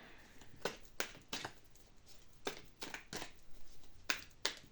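Tarot cards being handled and laid down: several short card slaps and rustles.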